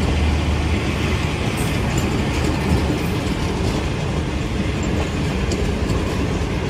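Pakistan Railways passenger coaches rolling past at close range as the express pulls away, a steady rumble of wheels on rail with a few faint clicks.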